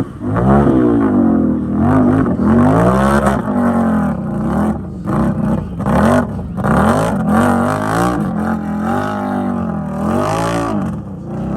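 ATV engine revving hard and unevenly, its pitch climbing and falling again and again as the throttle is worked.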